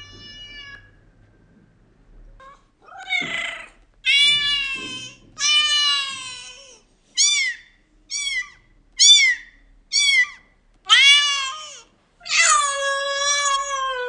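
Domestic cat meowing over and over: about nine meows, some long and drawn-out, several short ones in quick succession in the middle.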